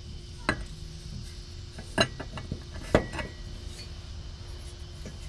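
A few sharp metallic clinks and knocks as the mini Jeep's exhaust pipe is handled and fitted back into place, the loudest about three seconds in.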